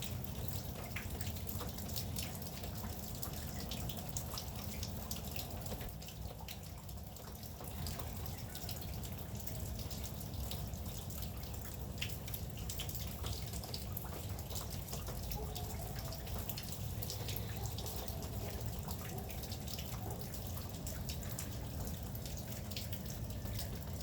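Steady rain with many separate drops and drips ticking close by.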